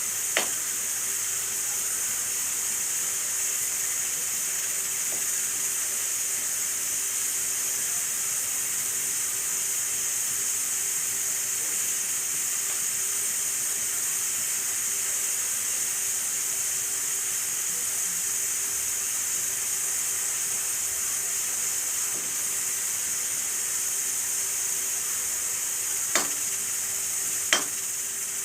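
Food frying in hot oil in a kadhai, a steady sizzle, with a few sharp clicks at the start and twice near the end.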